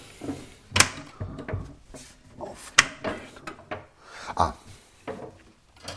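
Doors of a wall-mounted wooden cabinet being opened and handled: a series of sharp wooden clacks and knocks, the loudest about one and three seconds in, with wood rubbing in between.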